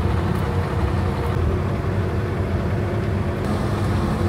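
PAZ bus engine labouring steadily in first gear up a steep gravel slope, a constant low drone.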